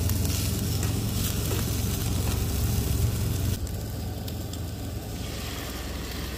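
Marinated beef short ribs (LA galbi) sizzling and crackling on a charcoal grill, with a low rumble underneath.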